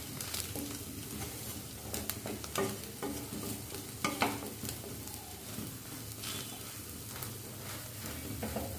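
Bread omelette frying with a soft sizzle in a pan, with a few short scrapes and taps of a wooden spatula against the pan as it is pressed and folded.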